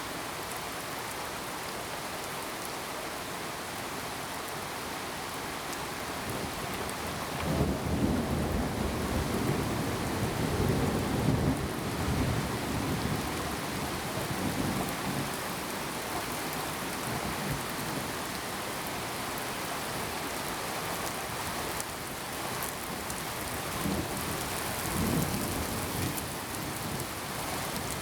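Steady rain, with thunder rumbling in low for several seconds about a quarter of the way in and again, more briefly, near the end.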